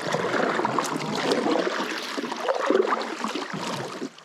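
River water rushing and splashing around a kayak, with scattered small splashes, fading near the end.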